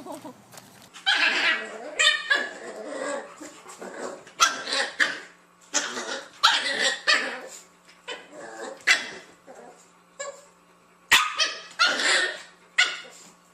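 A dog barking repeatedly, with about a dozen short, sharp barks and yips coming at irregular intervals.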